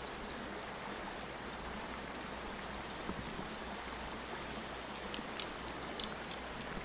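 Steady rush of a small river's flowing water, with a few faint high ticks in the last couple of seconds.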